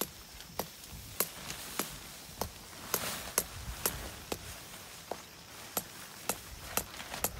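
Tent peg being driven in with a hammer: a steady run of sharp strikes, a little under two a second.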